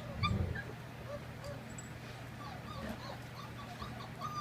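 Young puppies whimpering in a string of short, high squeaks, several a second. A low thump comes just after the start.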